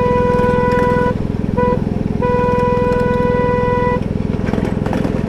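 Miniature ride-on train's horn sounding a long blast, a short blast and another long blast, the end of the long-long-short-long grade-crossing signal given at a whistle post. Under it the locomotive's engine runs steadily.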